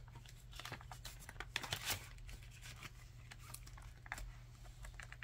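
Paper banknotes and a plastic binder pocket rustling and crinkling as bills are slid into the pocket and handled, with soft irregular taps and clicks, busiest in the first two seconds.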